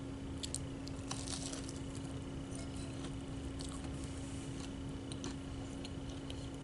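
Faint chewing with small wet mouth clicks and smacks, scattered irregularly over a steady low electrical hum.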